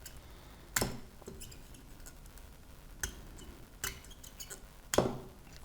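About five light clicks and clinks spaced through a few seconds: small metal tools touching a circuit board while components are being desoldered.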